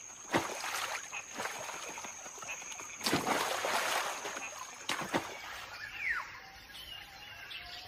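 Macaques leaping into a river and swimming: several splashes, the biggest a longer rushing splash about three seconds in, over a thin steady high whine. About six seconds in comes a single falling bird call, with faint bird calls after it.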